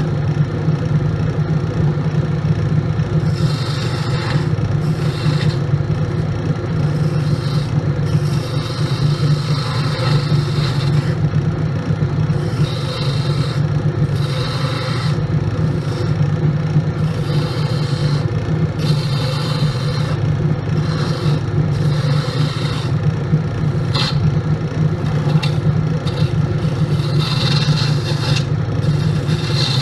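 Grizzly wood lathe running with a steady motor hum while a hand-held turning tool cuts a spinning wooden blank. The scrape of the tool taking off shavings comes and goes in repeated passes, each a second or two long.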